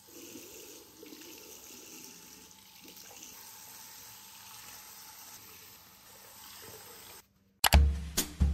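A bathroom tap running steadily into a ceramic washbasin. It cuts out about seven seconds in, and music with a drum beat starts just before the end.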